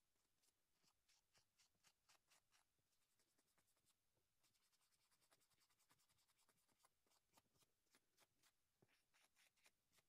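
Faint, quick scratching strokes of an abrasive being rubbed along a gas furnace's flame sensor rod to scrub off white oxidation. The strokes come in quick runs and are densest around the middle.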